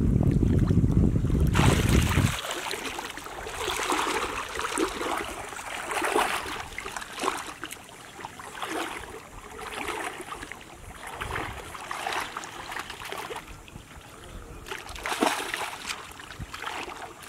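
Wind buffeting the microphone, cutting off about two seconds in, then water splashing and sloshing in irregular strokes about once a second.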